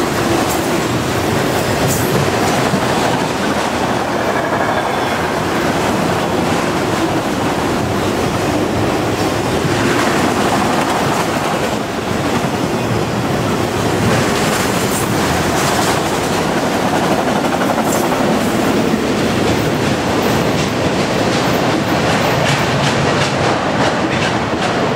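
Freight train of autorack cars rolling past close by: a loud, steady rumble of steel wheels on rail with a rapid clickety-clack of wheels over the rail joints. The high hiss thins out near the end as the last car goes by.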